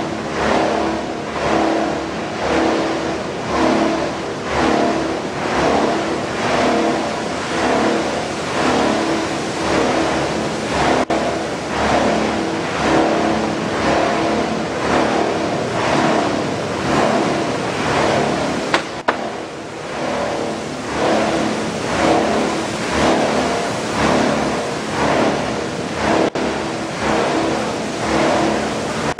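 PET bottle washing and recycling line machinery running: a loud, steady mechanical din that swells about once a second, broken briefly by edits a few times.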